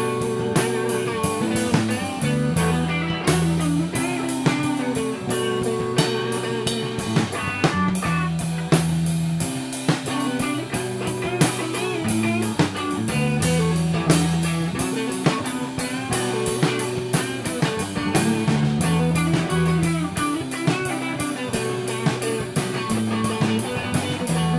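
Rock band playing: guitar and bass over a drum kit, with a bass riff repeating every four to five seconds.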